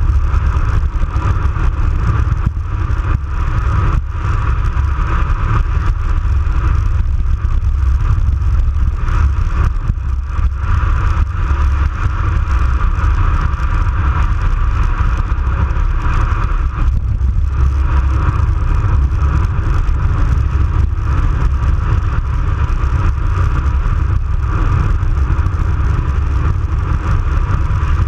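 Wind buffeting the microphone of a bike-mounted action camera on a fast road descent: a loud, steady, deep rumble with the hiss of the bicycle's tyres rolling on asphalt.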